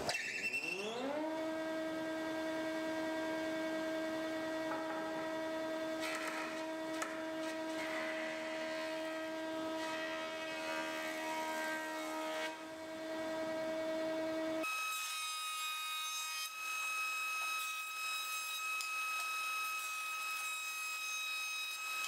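Combination planer-thicknesser running up to speed, its hum rising in pitch over the first second and then holding steady while oak boards are face-planed over the cutter block. About fifteen seconds in, the sound changes abruptly to a thinner, higher-pitched hum.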